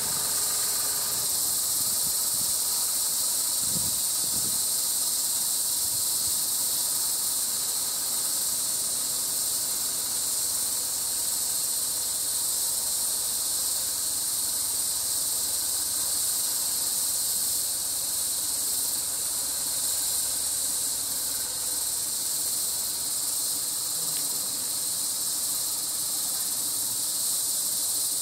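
Steady, high-pitched drone of insects, an unbroken shrill hiss that does not change.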